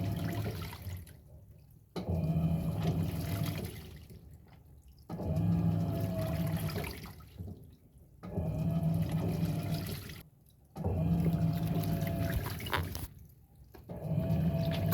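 Electrolux 6 kg washing machine in its wash cycle with a load of towels: the motor hums and the water sloshes in bursts of about two seconds, each followed by a short pause, about every three seconds, as the drum works back and forth.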